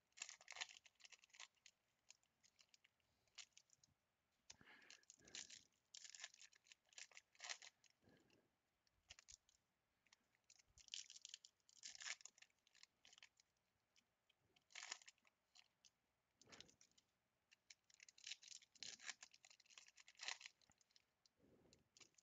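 Faint crinkling and tearing of plastic and foil wrapping being pulled open by hand, in short crackly bouts that come and go.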